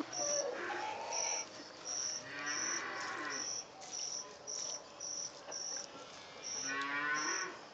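A cricket chirping: short high chirps repeating about every half second to a second. Two longer, lower calls come in about three and seven seconds in.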